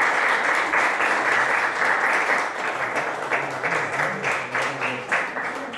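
Audience applauding: a dense, even clapping that thins into separate claps in the second half and dies away near the end.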